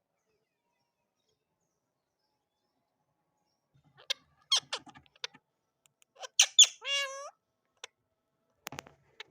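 Ringneck parakeet calling. After about four seconds of silence come a few short, sharp calls in quick succession, then one longer call that wavers in pitch, then a few faint clicks near the end.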